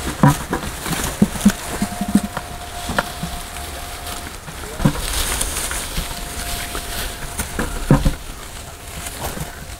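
Garlic being harvested by hand: scattered knocks, clatter and rustling as bulbs are handled and dropped into buckets.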